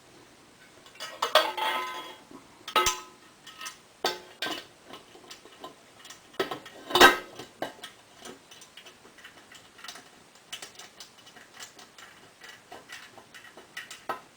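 Metal clinks and clanks of bolts and an aluminum skid plate being handled and fitted under a quad's swing arm, with the loudest knocks about a second and a half, three and seven seconds in, then a run of lighter ticks.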